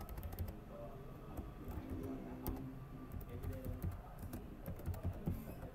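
Computer keyboard typing: quick keystroke clicks in several short runs separated by brief pauses.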